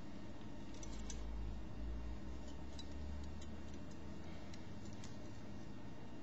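Faint, scattered light clicks of small metal parts as a miniature sword is turned in gloved hands. A low handling rumble runs through the first half, over steady room hiss.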